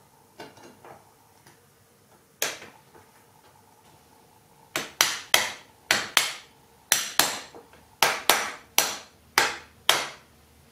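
Small hammer striking the dovetailed steel body of an infill plane held in a vise. There is one blow about two seconds in, then a run of about a dozen sharp, ringing metallic taps, roughly two a second.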